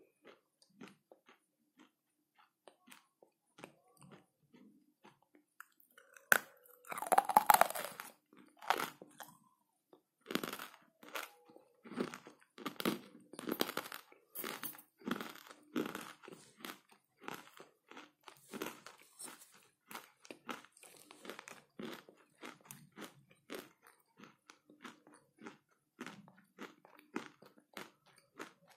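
Close-up crunching and chewing of hard, dry clay chunks, with a loud bite about six seconds in and repeated crunching chews after it.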